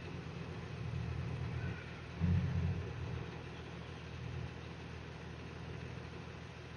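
Toyota LandCruiser 80 series engine running at low revs as the truck crawls over a rutted off-road track, with a brief surge in revs a little over two seconds in.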